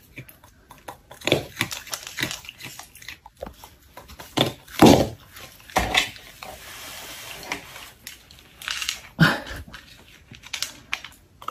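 A raccoon eating dry food pieces from a plastic cup: irregular crunching and clicks of chewing and of the cup being handled, with a few louder knocks.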